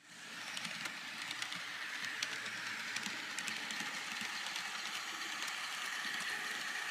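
Model train's DCC sound decoder playing locomotive running sounds through its small onboard speaker, steady and hissy, with scattered sharp clicks throughout.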